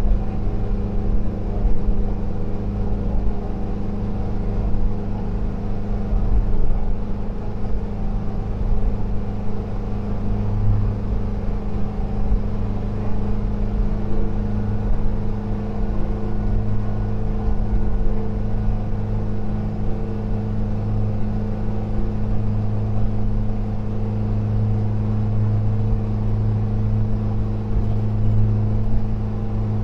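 1973 VW camper van's air-cooled flat-four engine, freshly rebuilt, running steadily under way at a constant speed: an even, unbroken drone with road noise underneath.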